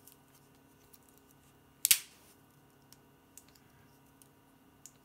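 Tools of a modified three-layer Victorinox Swiss Army knife snapping against their backsprings: one sharp metallic snap about two seconds in, with a few faint clicks around it. A crisp snap is the sign of a well-made mod, with the rivets set so the tools have enough room in the layers to move.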